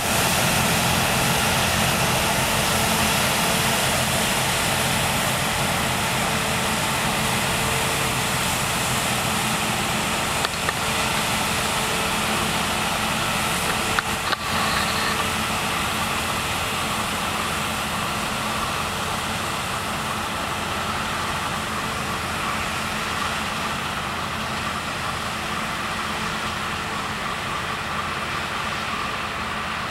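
Claas Lexion 580 combine harvester running while harvesting grain: a steady drone of engine and threshing machinery that slowly grows fainter as the combine drives away. A brief click about fourteen seconds in.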